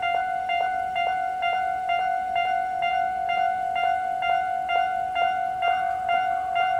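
Japanese railway level-crossing warning bell ringing: electronic dings repeat evenly about two and a half times a second over a steady ringing tone.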